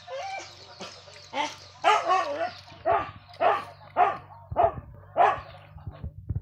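A dog barking over and over, a run of seven or eight barks at about two a second. A few low knocks follow near the end.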